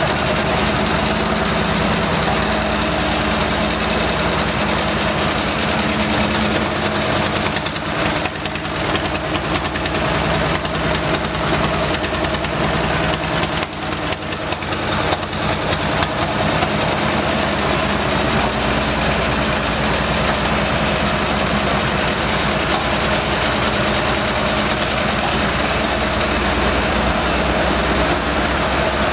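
Chevy small-block V8 idling through a short open exhaust pipe, running steadily with brief unevenness about 8 and 14 seconds in.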